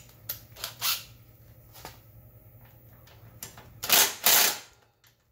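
Cordless impact driver hammering on a subframe Allen bolt in two short bursts close together near the end, after a few light clicks in the first second.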